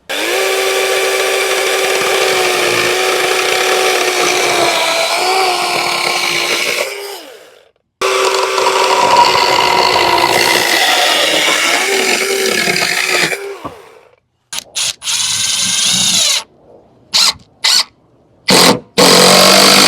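Gas chainsaw running at high revs while cutting a 2x6 board, its engine tone steady with brief dips under load. It dies away about thirteen seconds in, and several short bursts of sound follow near the end.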